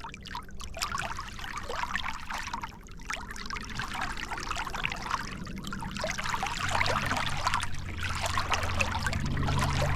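Oars of a small clinker dinghy being rowed on calm water: repeated small splashes and water trickling and dribbling off the blades. A low steady hum joins about two-thirds of the way through.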